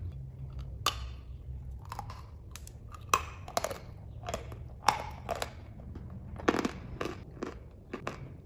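Dry chalk being bitten and chewed: a string of irregular sharp crunches, a few noticeably louder than the rest, as the pieces are ground between the teeth.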